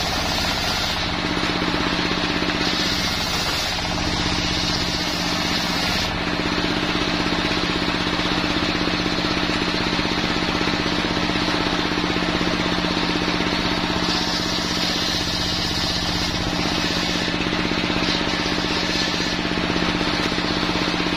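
Homemade engine-driven circular sawbench ripping jenitri wood planks. The engine runs steadily with a fast, even pulse, and the blade's cutting hiss rises and falls several times as boards are pushed through and pulled back.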